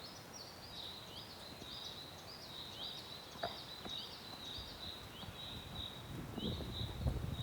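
Small birds chirping steadily in the countryside, a dense run of short high, hooked chirps. A single sharp click about three and a half seconds in, and a low rustling rumble near the end.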